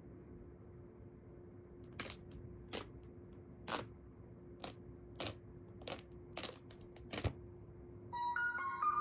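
About ten short, sharp rustling scrapes about half a second apart, from the phone's box and packaging being handled and opened. Near the end a melody of bright, stepped notes begins.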